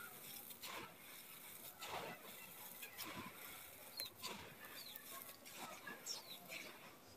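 Dry, gritty red dirt being scooped and poured through hands onto a hard floor: a soft, crumbly rustle that swells each time a handful is dropped, about every second.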